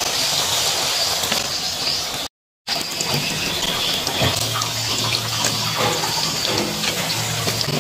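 Corn fritters deep-frying in hot oil in a wok, sizzling steadily, with a few scrapes of a plastic spatula as they are turned. The sound cuts out for a moment about two seconds in.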